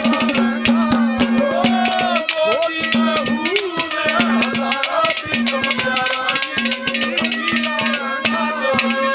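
Instrumental interlude of live Haryanvi ragni folk music. A harmonium plays the melody over a steady held drone, with fast, dense strokes on hand-played barrel drums.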